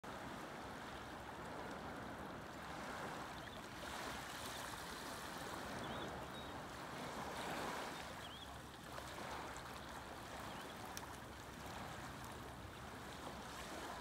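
Small, gentle ocean waves lapping and washing onto a sandy shore, the wash swelling and easing every couple of seconds.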